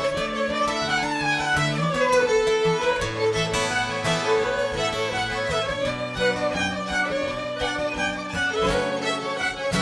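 Several fiddles bowing a fiddle tune together, with a guitar strumming along.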